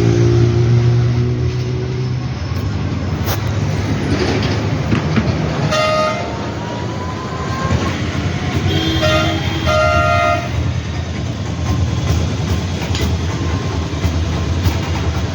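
Road traffic passing with a steady engine hum, and vehicle horns honking: one short honk about six seconds in, then a couple more around nine to ten seconds.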